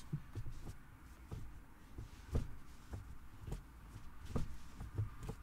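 Manual gear lever of a BMW F20 1 Series being worked through its gate: a string of soft clunks and knocks at irregular intervals, about one every half second to a second, over a steady low hum.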